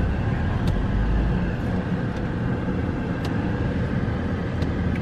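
Car engine and low traffic rumble heard from inside the car's cabin, steady, with a few faint ticks.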